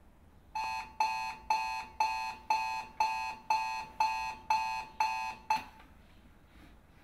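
Digital alarm clock going off with a rapid electronic beeping, about two beeps a second, until it is switched off about five and a half seconds in.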